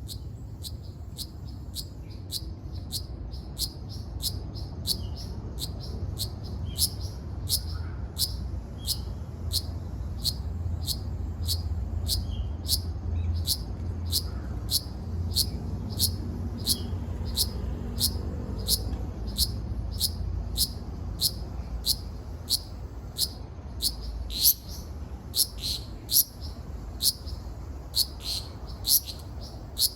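Ryukyu large brown cicada (Graptopsaltria bimaculata), a male's calling song: a steady series of short, sharp, high chirps, about two a second, over a low steady rumble.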